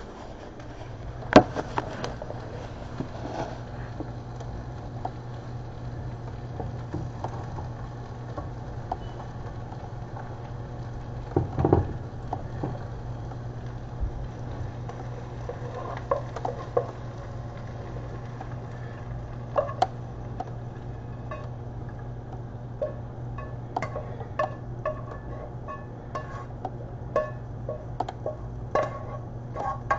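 A spatula knocking and scraping against a nonstick frying pan and a plate as fried onions are served out of the pan, the knocks coming more often toward the end, over a steady low hum.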